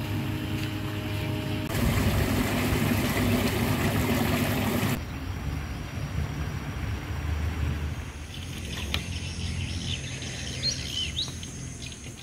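Outdoor background noise with a steady low rumble, and a bird chirping a few times in the last few seconds.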